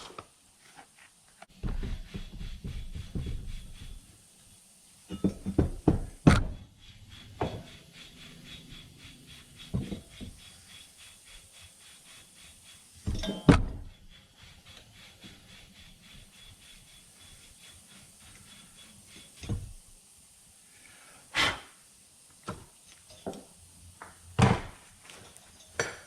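Scattered knocks, clacks and rubbing of metal alternator parts and tools being handled and set down during reassembly, with a few sharper clacks spaced several seconds apart.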